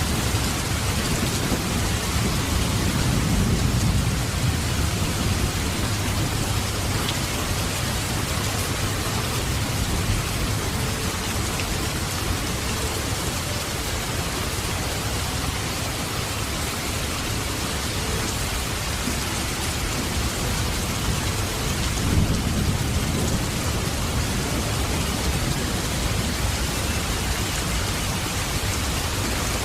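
Steady heavy rain falling, with low rolls of thunder rumbling twice: a few seconds in and again about two-thirds of the way through.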